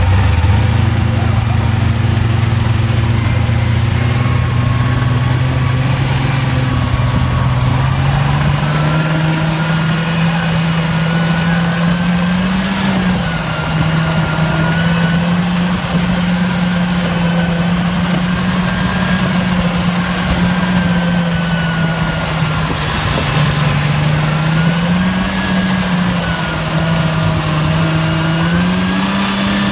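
Small vehicle's engine running steadily while towing loaded sleds over snow; its pitch climbs about eight seconds in as it speeds up, then holds with a few brief rises and dips.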